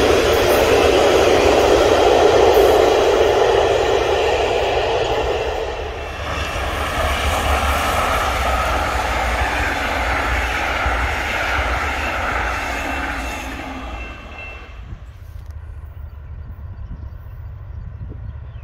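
A train passing: a loud rushing rumble for the first few seconds that eases off, with faint high tones, then fades to a low rumble about three-quarters of the way through.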